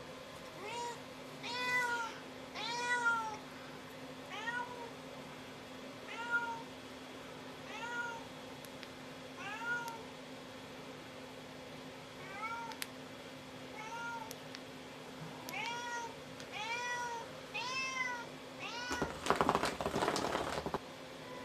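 A domestic cat meowing over and over, short rising-and-falling meows about once a second. Near the end there is a louder, noisy rattling burst lasting about two seconds.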